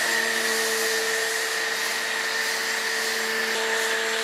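Greenworks electric pressure washer running steadily with a motor-and-pump hum, and the hiss of an MJJC Pro 2 foam cannon spraying foam onto a car hood.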